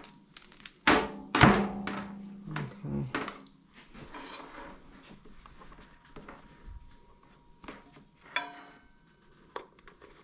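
Handling knocks from a power cord and a vacuum pump on a wooden table: two sharp knocks about a second in, lighter clatter, then a click near the end as the cord's connector is pushed into the pump's power socket. The pump is not running.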